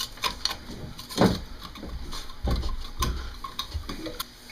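An old gasket being scraped off the manifold flange of an Atomic 4 engine: several uneven scrapes and knocks.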